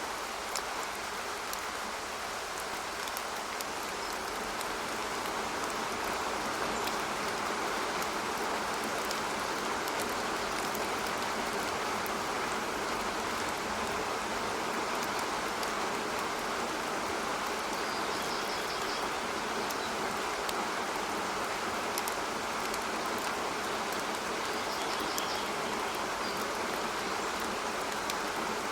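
Steady rain falling, an even hiss with scattered drop ticks. A few faint high bird chirps come in during the second half.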